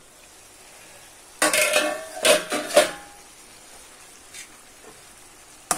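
Steel pan lid lifted off and set down, clattering and ringing briefly for about a second and a half, starting about a second and a half in. Before and after it, a faint hiss comes from the tomato curry simmering in the pan.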